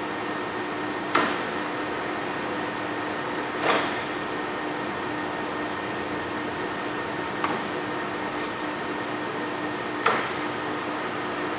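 Kingston 30 by 120 gap bed lathe running with a steady hum, broken by four short clunks from the apron controls being worked: about a second in, near four seconds, a softer one past seven seconds, and one at about ten seconds.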